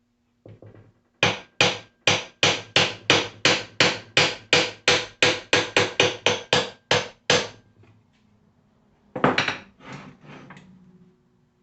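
Hammer blows, about eighteen sharp strikes at roughly three a second, then a pause and a short cluster of a few more, knocking loose a part that paint has stuck.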